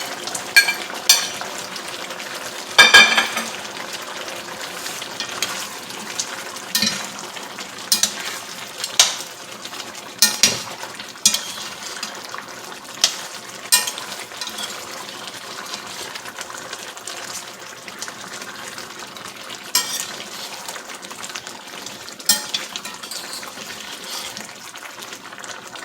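Lamb and vegetables sizzling in a pot in the lamb's own juices, with repeated sharp clanks of a utensil against the pot as the vegetables are added and stirred; the loudest clank comes about three seconds in.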